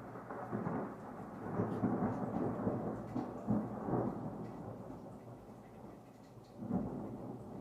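Thunder rumbling over rain: it breaks in suddenly and rolls on in several swells, with a last swell near the end.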